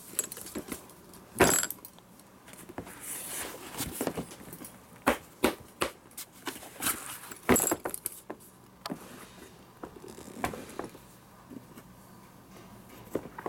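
A fabric tool tote being handled and turned over: irregular rustles, clicks and knocks from its fabric, fittings and plastic feet against the counter, the sharpest knocks about a second and a half in and again past the middle.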